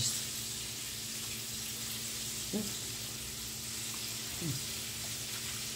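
Fish frying in hot oil in a pan on the stove: a steady sizzle, with a low hum beneath it.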